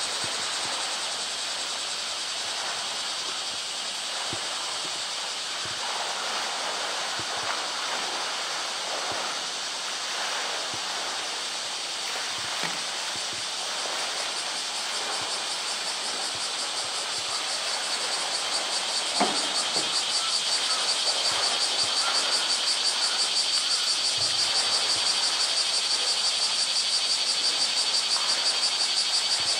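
Water splashing and sloshing as a polar bear swims and thrashes in a pool, with a few small knocks. Over it runs a constant high droning of summer cicadas, which grows louder with a fast pulsing about two-thirds of the way through.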